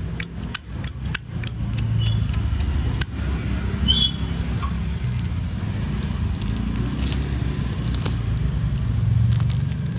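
A few sharp metallic clicks in the first second and a half, typical of a Zippo lighter being handled, over a steady low rumble.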